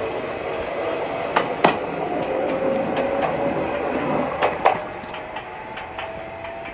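Jōmō Electric Railway electric train running, with a faint traction-motor whine slowly rising in pitch. Wheels clack over rail joints in two quick pairs, one about a second and a half in and another about four and a half seconds in.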